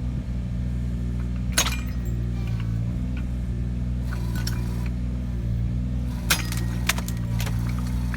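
Takeuchi TB219 mini excavator's engine running steadily, with sharp cracks and clicks scattered over it, the loudest about a second and a half in and twice around six to seven seconds in.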